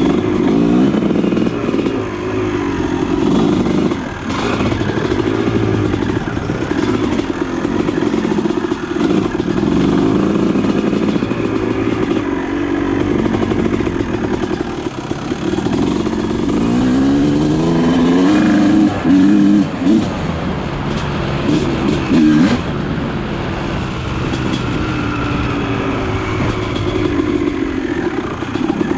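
Honda CR250R two-stroke dirt bike engine with an aftermarket pipe, revving continuously as it is ridden, its pitch rising and falling as the throttle is worked. About two-thirds of the way through, the throttle is snapped shut and reopened a few times.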